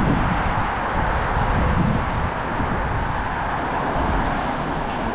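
Road traffic passing close by: cars and a delivery van driving past, a steady rush of tyre and engine noise.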